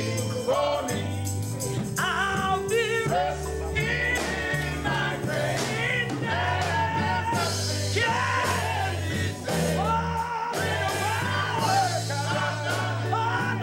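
Male gospel group singing live with a band, several voices together over steady bass notes.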